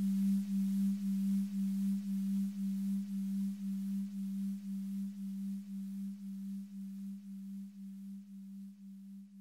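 Electronic music: a single low steady tone pulsing about two and a half times a second over a faint hiss, slowly fading out.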